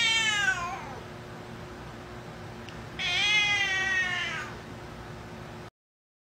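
Tuxedo cat meowing loudly twice, two long drawn-out meows about three seconds apart: the first slides down in pitch, the second rises and then falls.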